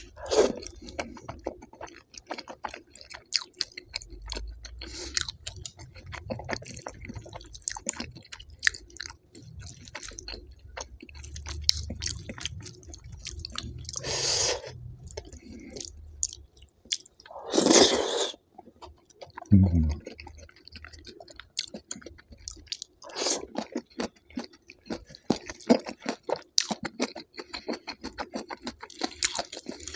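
A person chewing a meal close to the microphone, with many small wet mouth clicks and scattered crunches, and two louder bursts of noise a little past halfway through.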